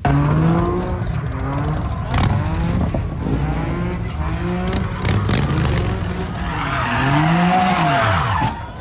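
Motorcycle engine revving, its pitch climbing and dropping again several times. Near the end, tyres skid with a harsh squeal for about two seconds.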